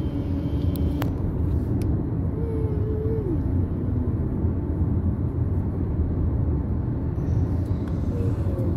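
Steady low rumble of road and engine noise from inside a moving car, with a short pitched tone about two and a half seconds in.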